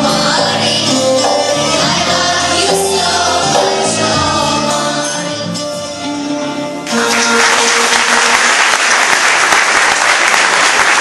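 Youth choir singing with oud and keyboard accompaniment, bringing the song to its end. About seven seconds in, audience applause breaks out suddenly over a briefly held last note and continues.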